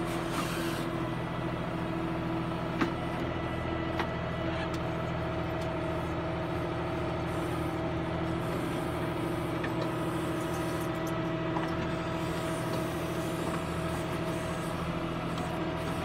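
Backhoe loader's diesel engine running steadily under load while the rear bucket digs soil, with a steady whine above the engine's drone. There is a single sharp knock about three seconds in.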